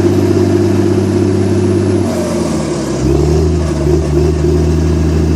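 Komatsu D61EX crawler dozer's diesel engine running loud and steady; about two seconds in its note drops, then settles a second later at a lower steady pitch.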